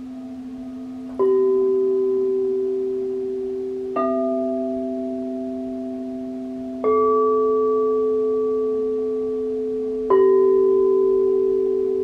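Frosted crystal singing bowls struck with a mallet four times, about every three seconds. Each strike leaves a pure tone that rings on and slowly fades, so the notes overlap over a steady low hum.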